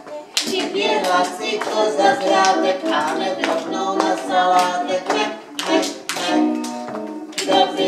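A song being sung, with hand clapping keeping a steady beat along with it.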